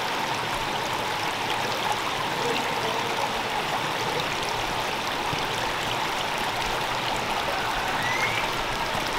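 A creek running: a steady rush of flowing water.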